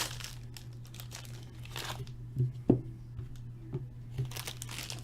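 Trading-card pack and cards being handled: crinkling and rustling with a few light clicks and taps, the sharpest about two and a half seconds in, over a steady low hum.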